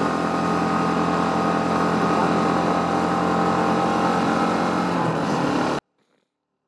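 Motorcycle engine running at a steady speed while riding. The sound cuts out abruptly a little before the end.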